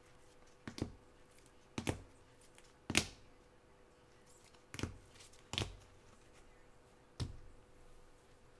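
Rigid plastic card holders clicking and tapping against each other and the table as a stack of cards is handled and one is set down: about seven short sharp clicks, the loudest about three seconds in. A faint steady hum underneath.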